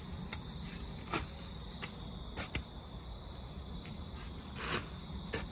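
Shovels scraping and chopping into dirt several times in uneven strokes, over a steady chirring of crickets.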